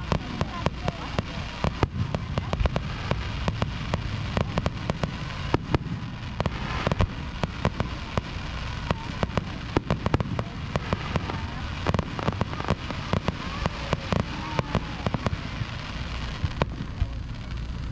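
Fireworks popping and crackling: a long run of sharp, irregular pops, several a second, over a steady low rumble.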